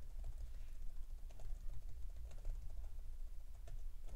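Typing on a computer keyboard: irregular key clicks while code is entered.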